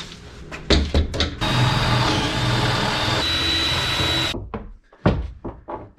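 Power drill running steadily for about three seconds, then stopping abruptly. A few clicks and knocks come before and after it.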